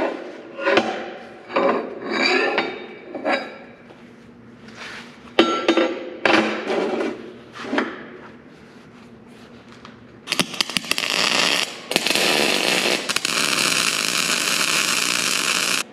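Heavy steel plates knocked and clanked into position. From about ten seconds in, a welding arc crackles steadily in three runs, breaking briefly twice, as the inch-thick plates are tack-welded together.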